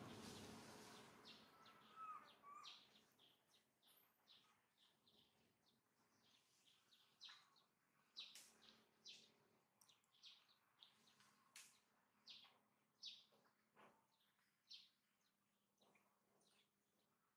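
Faint, scattered short bird chirps, high-pitched and irregular, over an otherwise near-silent background, with a brief burst of rustling noise at the start.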